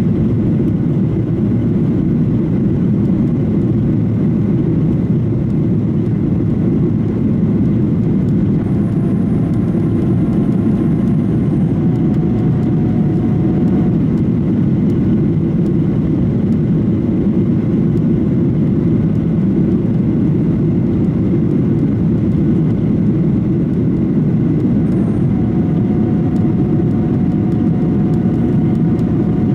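Steady drone inside the cabin of a Boeing 737-800: its CFM56 jet engines and air rushing past the fuselage, with faint thin tones coming and going.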